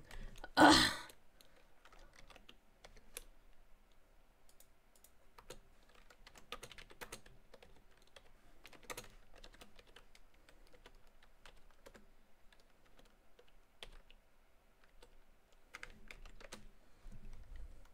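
Computer keyboard typing: scattered single keystrokes and short runs of key clicks, with a brief loud burst of noise about a second in.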